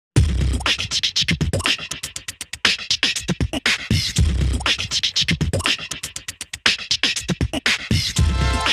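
Background hip hop beat music: a deep bass kick and fast, crisp hi-hat-like clicks in a steady rhythm, with held melodic notes coming in near the end.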